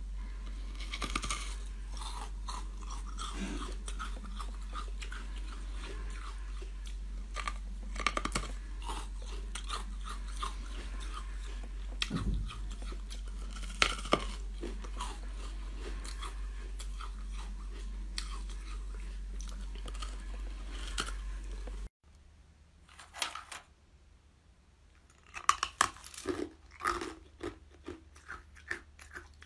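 Close-up biting, crunching and chewing of hard coloured ice, with sharp cracks as pieces snap off. A steady low hum runs under the first part and stops about 22 seconds in. After that come a quieter few seconds and then more bursts of crunching.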